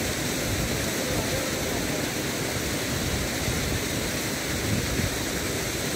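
Steady rushing of river water flowing over rocks, an even noise with no breaks.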